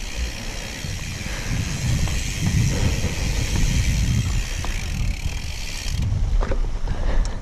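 Mountain bike riding over a dirt trail: rough tyre and frame rumble with rattling, under a steady hiss that stops about six seconds in.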